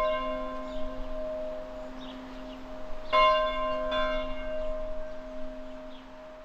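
A large bell tolling. It is still ringing from a strike just before as the sound begins, then is struck again about three seconds in and once more about a second later. Each strike rings on in several tones with a low hum that fades slowly.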